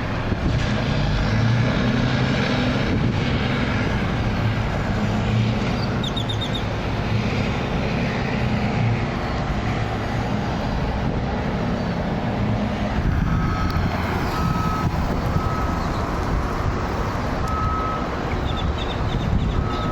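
Steady low rumble of heavy machinery running. From about two-thirds of the way in, a vehicle's reversing alarm beeps roughly once a second.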